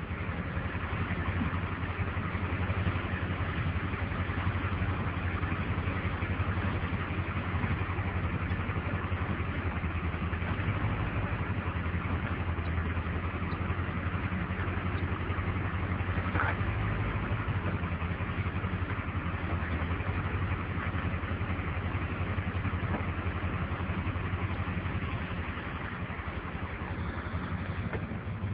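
Tow truck's engine idling steadily, with a single sharp click about halfway through.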